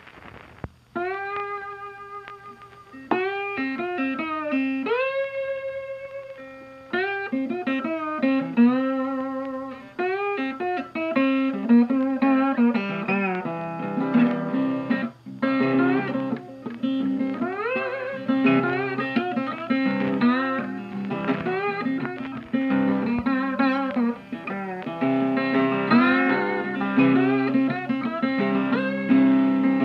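Country rock music led by guitar, opening with a few sparse, held notes and building to fuller playing over a steady low bass line.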